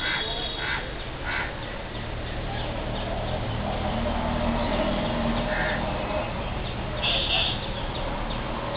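Outdoor background noise with short bird calls repeating a handful of times, one of them higher and louder about seven seconds in.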